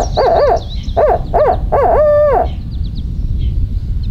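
Barred owl hooting in its 'who cooks for you, who cooks for you-all' rhythm: a run of short rising-and-falling hoots that ends about two and a half seconds in on a long drawn-out note. Faint high chirps sound behind it.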